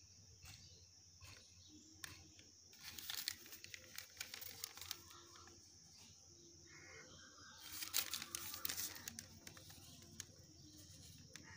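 Paper and crumpled aluminium foil crinkling and rustling as paper is handled against a foil-lined reflector dish, in two louder spells about three and eight seconds in.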